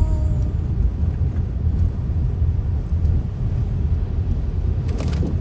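Steady low rumble of a car on the move, heard inside the cabin, with a brief knock near the end.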